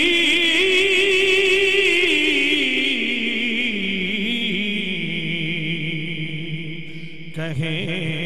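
A man singing a naat salam unaccompanied through an amplified microphone, drawing out one long wavering note that slowly steps down in pitch, with a short break for breath near the end.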